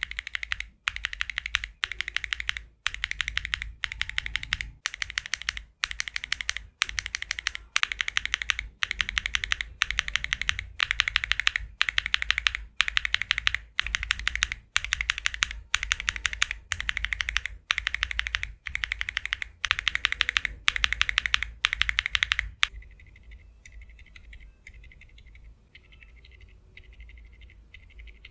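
Typing on a Tofu62 mechanical keyboard fitted with Akko switches: fast runs of key clicks in bursts about a second long, with short breaks between them. About 23 seconds in, the typing turns much quieter and thinner.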